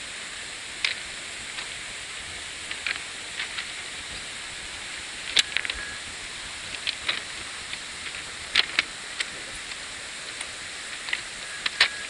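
Steady hiss of rain and falling water, with scattered sharp ticks and taps on top of it. The ticks come at uneven intervals and are the loudest sounds.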